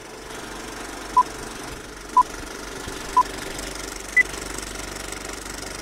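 Old-film sound effect: a steady clattering film-projector rattle with crackle, over which come three short beeps a second apart and then a fourth, higher beep, like a film countdown leader.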